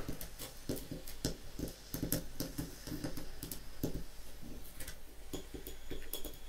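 Faint, irregular clicking and crackling, several clicks a second, with no music.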